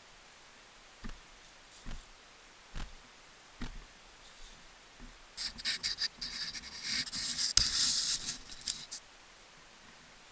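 Footsteps on dry fallen leaves: four single steps about a second apart, then about four seconds of dense crunching and rustling in the leaves, the loudest part.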